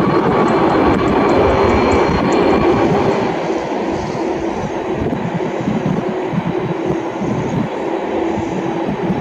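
The twin GE90-115B jet engines of a Boeing 777-300ER running at taxi power: a loud, steady rush of engine noise with a constant humming tone under it. The noise eases slightly about four seconds in as the jet turns its tail away.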